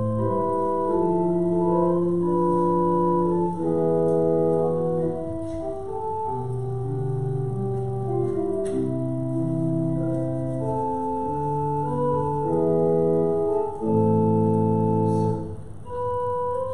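Organ music: slow, sustained chords of several held notes that change every second or two.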